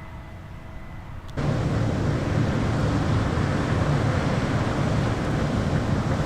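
Combine harvester running: a steady low engine drone with a noisy rush over it, coming in abruptly about a second and a half in after a quieter stretch.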